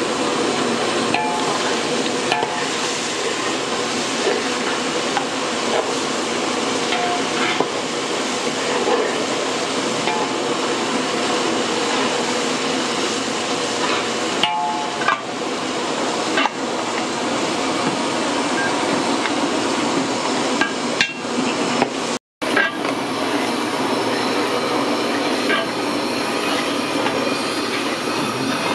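Large aluminium pots of biryani stock boiling hard over the fire, a steady rushing and bubbling, with a metal ladle stirring and knocking against the pot now and then. The sound drops out for a moment about 22 seconds in.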